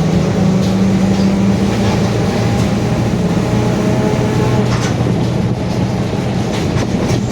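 Mercedes-Benz OF-1721 BlueTec 5 city bus under way: the diesel engine runs steadily, with a growling differential. The engine note drops about two seconds in, and there are a few short rattles.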